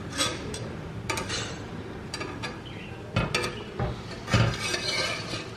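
A metal spatula scrapes and taps against a cast-iron uttapam pan as pancakes cook. Several sharp clanks of kitchen metalware come through it, the loudest about three and four and a half seconds in.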